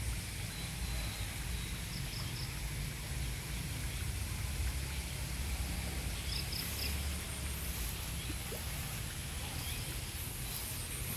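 Outdoor ambience: a steady low rumble on the microphone with an even high hiss, and a few faint high chirps about two seconds in and again near the middle.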